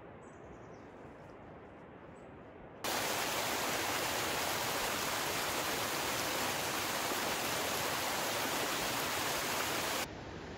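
Steady rushing noise like running water, such as a mountain creek. It starts abruptly about three seconds in after a quieter hiss, stays loud and even, and cuts off abruptly near the end, where a quieter hiss takes over.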